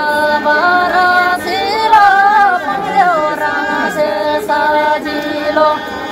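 A woman singing a folk melody, holding long notes that bend and waver up and down between phrases.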